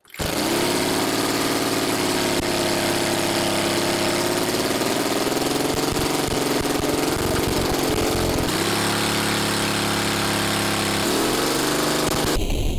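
Homemade gasoline engine converted from a car air-conditioning compressor, running steadily; its speed wavers up and down, dipping twice, while the fuel mixture is adjusted by hand.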